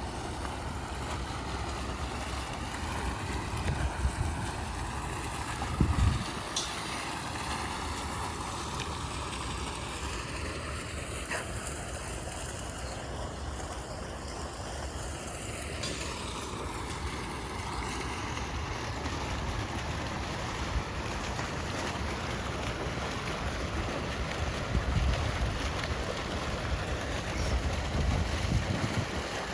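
Jet airliner passing over, a steady rushing noise whose tone sweeps down and back up around the middle, with wind buffeting the microphone in a few low thumps.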